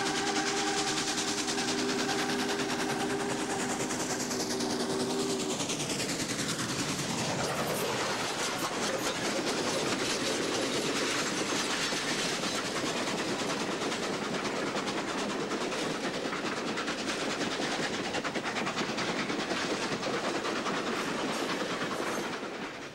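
Norfolk & Western Class J No. 611 steam locomotive sounding its chime whistle, a steady chord held for about five seconds as it approaches. It then runs close past at speed, and the loud rush and clatter of the engine and its passenger cars, with wheels clicking over the rail joints, goes on until it drops away sharply near the end.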